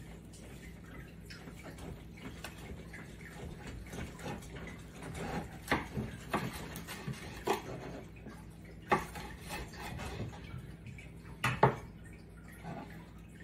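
A long slicing knife saws through the crusty bark and meat of smoked beef short ribs on a wooden cutting board, with scattered sharp knocks of the blade against the board. The loudest knock comes near the end, as the knife is laid down on the board.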